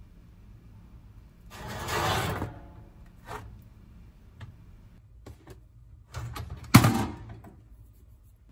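Toast being lifted off a toaster oven's wire rack onto a plate, with a short scraping rustle about two seconds in and a few small clicks. Near the end the toaster oven door clunks shut once, the loudest sound.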